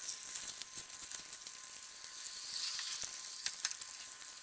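Chicken thighs in a creamy Parmesan sauce sizzling in an uncovered pan as the sauce cooks down, a steady hiss full of small crackles. There are a couple of sharp clicks about three and a half seconds in.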